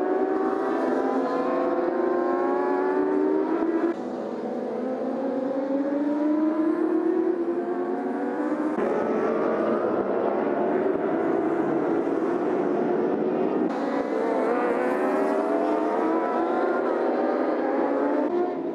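Racing motorcycle engines accelerating hard, their pitch climbing again and again as the bikes pull through the gears. The sound changes abruptly three times, switching from one bike or group of bikes to another.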